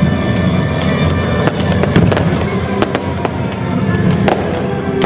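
Irregular sharp cracks and bangs, like firecrackers, from the staged bombing raid of a stage show, starting about one and a half seconds in over a low rumble and dramatic music.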